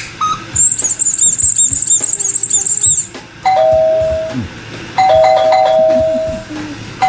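Doorbell ding-dong sound effect, two falling notes, chiming twice about a second and a half apart. Before it comes a high warbling trill lasting a couple of seconds.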